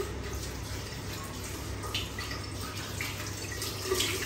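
Bathroom mixer tap running into a ceramic sink basin, with hands splashing in the stream and a few sharper splashes about two, three and four seconds in.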